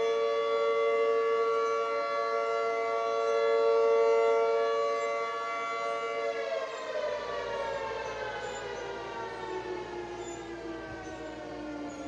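Mechanical outdoor warning sirens, a Federal Signal 2T22 and an ASC T-128, sounding a steady chord of tones for their monthly test, then winding down from about six seconds in, the pitch falling slowly as the rotors coast to a stop.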